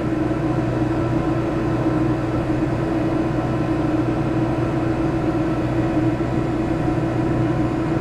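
A 5,000 BTU cool-only 12-volt DC marine air conditioner running under test: a steady hum from its compressor and blower, with a constant low tone and no change in speed.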